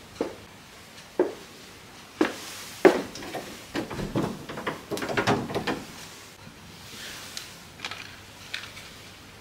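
Kitchen handling sounds: single sharp knocks about once a second, then a quick run of clicks and rattles as the knobs of a gas cooktop are turned, and a few fainter light ticks near the end.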